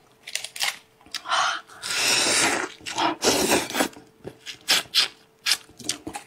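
Close-up eating sounds of a person sucking and biting meat off a spiced sheep's head: two longer slurping hisses in the middle among many quick wet clicks and smacks.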